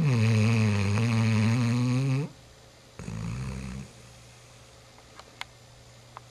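Young German shorthaired pointer snoring: one long, loud snore of about two seconds, then a shorter, lower snore about a second later, and a few faint clicks near the end.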